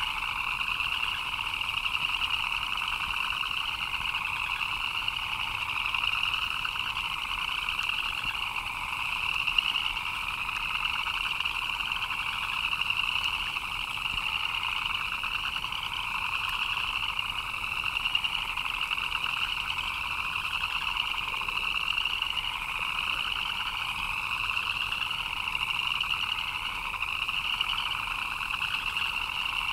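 Dense chorus of many frogs chirping without pause, in a lower and a higher pitch band, with the higher calls rising in pitch over and over.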